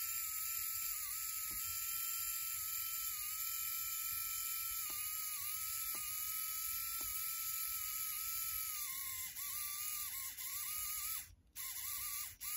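Small LEGO micro motor fed through a custom pickup on 9-volt train track, running with a steady high whine. The whine dips several times and cuts out twice near the end as the pickup is pressed and lifted: contact through the pickup's wheels is intermittent, and lifting it breaks the circuit.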